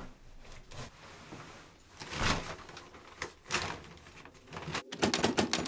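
A door swishing as it moves, twice, then a fast run of sharp clicks near the end.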